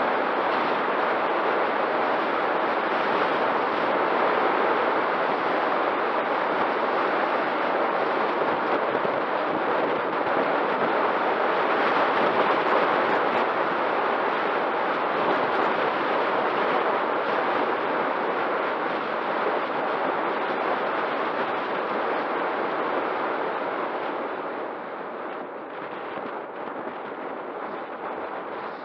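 Wind rushing and buffeting over the microphone of a bicycle-mounted camera on a fast downhill, with tyre noise on the asphalt under it; a steady noise that eases somewhat near the end.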